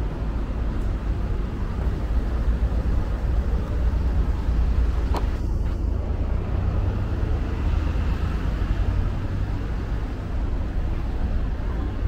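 Steady city street traffic noise: a constant low rumble of cars, with one sharp click about five seconds in.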